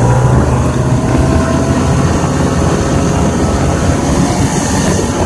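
Snowmobile engine running under way, heard from on board. Its note rises as it picks up speed at the start, then holds steady.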